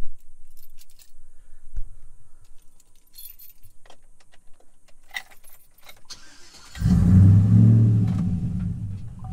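Keys jangling and clicking, then about seven seconds in the 2013 Chevrolet Silverado 1500's engine, fitted with long-tube headers, starts and runs loud at first before easing down toward idle.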